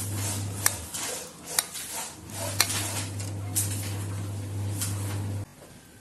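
Minced pork being added and worked into grated bottle gourd in a metal bowl, with sharp clinks against the bowl about once a second over a steady low hum. The hum cuts off abruptly near the end.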